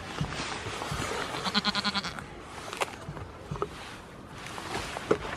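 A goat bleats once, a short wavering call under a second long about a second and a half in. A few light clicks follow.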